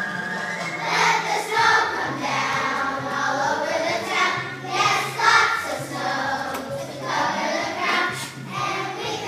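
A children's choir singing a song over a musical accompaniment of low held notes.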